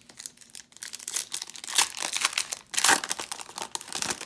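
Foil wrapper of a Donruss Optic trading-card pack being torn open and crinkled as the cards are pulled out: a dense crackling, loudest about two and three seconds in.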